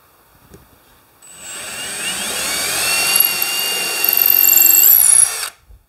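Milwaukee M18 Fuel cordless drill boring a 7/32-inch hole through a wooden board. The motor whine starts about a second in, rises in pitch as it spins up, holds steady and cuts off suddenly near the end.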